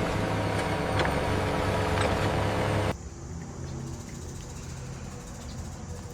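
Heavy vehicle engine running steadily, with a few faint clanks. It cuts off abruptly about three seconds in, leaving a quieter steady engine hum.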